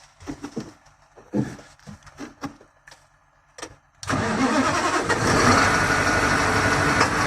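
A KamAZ truck's diesel engine starts suddenly about four seconds in and keeps running steadily, after a few faint clicks and knocks.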